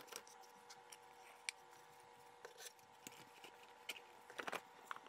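Faint scattered clicks and light knocks of hard 3D-printed plastic parts being handled, with a quick cluster of them about four and a half seconds in, over a faint steady hum.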